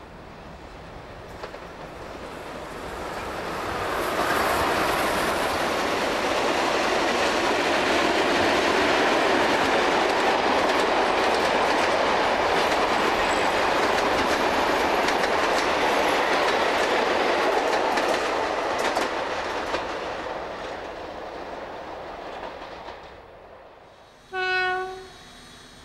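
Steam locomotive 3001 and two 44 class diesel-electric locomotives haul a passenger train past. The noise builds to a steady rolling clatter of carriage wheels on the rails, then fades as the train moves away. Near the end there is one short, single-note whistle blast.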